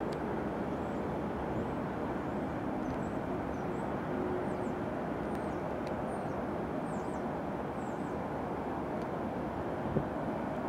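Steady jet engine rumble of an Airbus A319 on final approach for landing, with faint bird chirps above it and a brief knock near the end.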